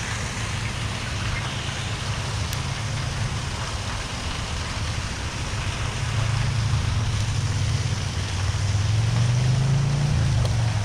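A motor engine running with a steady low hum over a broad hiss. It gets louder about halfway through and rises slightly in pitch near the end.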